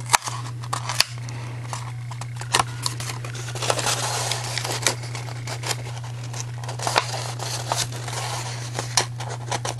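Cardstock rustling and crinkling as it is handled and shaped into a paper cone, with a few sharp clicks and taps, over a steady low hum.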